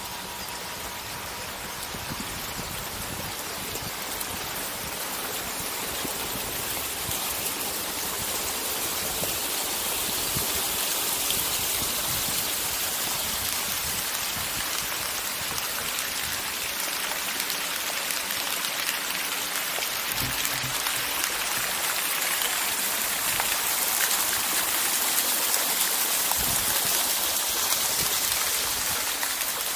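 Steady running, splashing water, growing louder over the first ten seconds or so and then holding.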